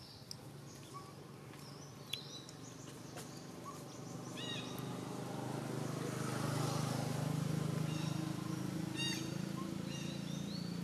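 Outdoor ambience: small birds chirping in short calls now and then, over a low droning hum that swells from about four seconds in and is loudest around two-thirds of the way through.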